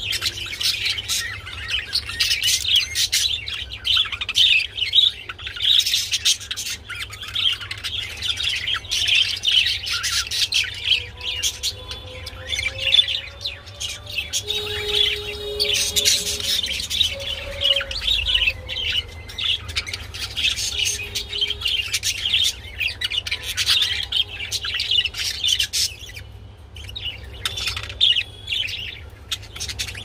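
Budgerigars chattering continuously in a fast stream of short, high chirps and warbles while a pair mates on the perch.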